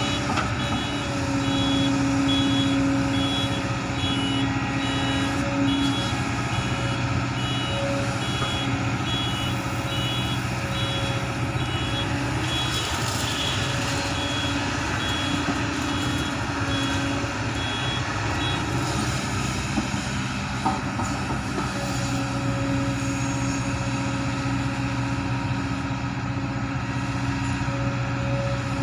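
Heavy diesel engine of an excavator working, its note swelling and easing with the load, with a reversing alarm beeping steadily through the first two-thirds and then stopping.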